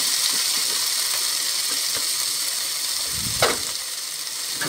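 Chopped tomatoes and fried onions sizzling in hot oil in a pan, a steady hiss, with a short scrape of the wooden spatula in the pan about three and a half seconds in.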